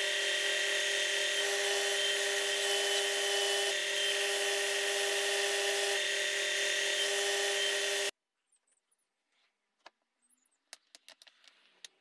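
Ferrex bench belt-and-disc sander running steadily, with a small piece of wood held against the sanding belt; the motor noise holds a few fixed tones. It cuts off suddenly about two-thirds of the way through, followed by light clicks of wooden strips being handled.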